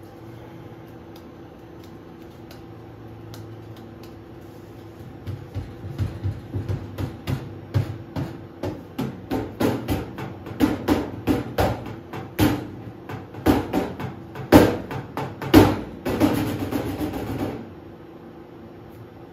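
Fingers tapping and drumming on the metal casing of a running microwave oven, over its steady hum. The taps start about five seconds in, grow faster and louder, and end in a rapid roll that stops shortly before the end, leaving the hum.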